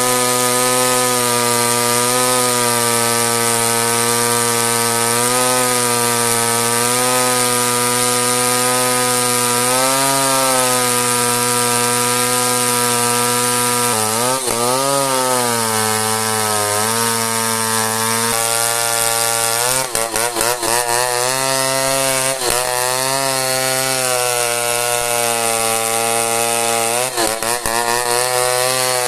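Two-stroke chainsaw running at high speed, cutting through dense merbau hardwood. Its pitch wavers as the chain works, dips sharply twice about halfway through as the cut loads the engine, and recovers. Short crackling clicks come in around two-thirds and near the end.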